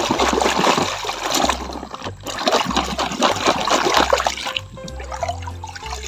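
Muddy water splashing and sloshing as a plastic toy dump truck is swished through it by hand, over background music with a repeating bass line. The splashing dies down near the end, leaving the music.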